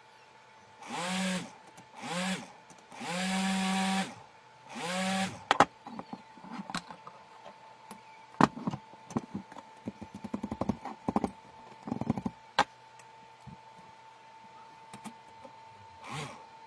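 Four short whines, each rising and then falling in pitch, followed by a run of sharp clicks and taps as wires are handled and twisted together on a wooden board. A faint steady high hum runs underneath.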